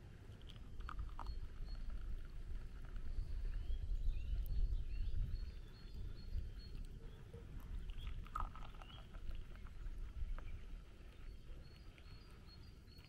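Wind rumbling on the microphone outdoors, with faint bird chirps and a few light clinks of glassware as tea is poured into a tea glass on a saucer.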